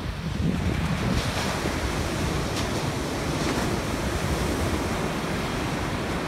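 Rough ocean surf breaking on the beach in a steady wash, with wind rumbling on the microphone.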